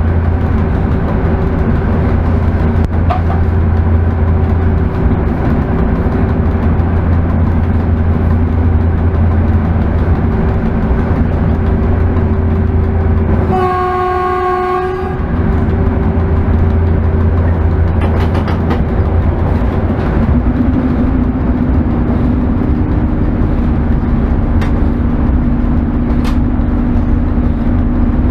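Running noise of an ET22 electric freight locomotive heard from the cab: a loud steady low hum with wheel-on-rail noise. About halfway through, the locomotive's horn sounds once for about a second and a half.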